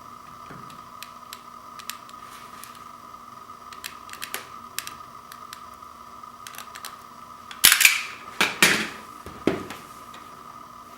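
Vinyl LP packaging being handled and opened: small clicks and rustles, then a burst of loud, sharp crackling about eight seconds in, with one more crackle shortly after. A faint steady high hum runs underneath.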